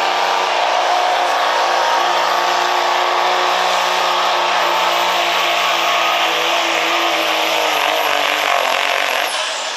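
2005 Dodge Ram pickup's Cummins turbo-diesel engine running flat out while pulling a weight sled, with a steady high turbo whine over the engine. Near the end the revs sag, the whine falls in pitch and the sound eases off as the pull ends.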